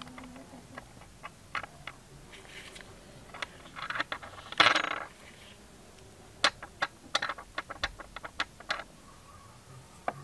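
Light metallic clicks and taps of a paintbrush against a small brass spoon lure blank, with a brief louder scraping rustle about halfway through and a quick run of clicks in the second half.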